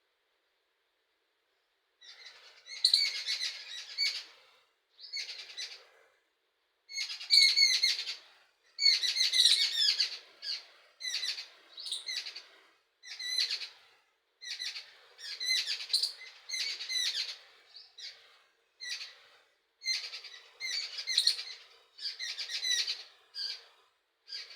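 Songbird singing: a run of short, high, chirping phrases repeated with brief pauses, starting about two seconds in.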